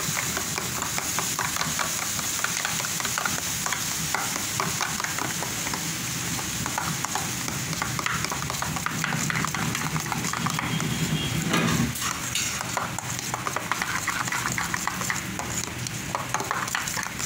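A metal spoon stirring and scraping a thick mayonnaise-based sauce around a stainless steel bowl, a continuous wet scraping with rapid small clicks. A louder knock comes about two-thirds of the way through.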